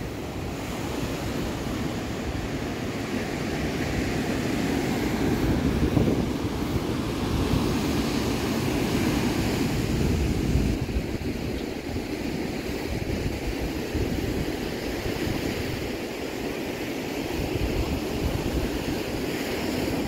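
Ocean surf breaking and washing up a sandy beach, mixed with wind buffeting the microphone, rising and falling in slow swells.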